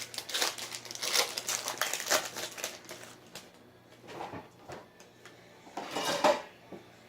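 Trading card pack wrapper crinkling as it is torn open and handled, in irregular bursts: dense for the first three seconds and again about six seconds in.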